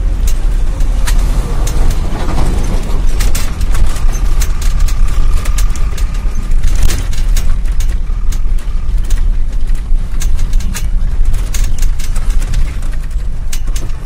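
Inside a moving bus on a rough dirt road: a loud, steady low rumble from the engine and tyres, with frequent rattles and knocks from the bus body as it bumps along.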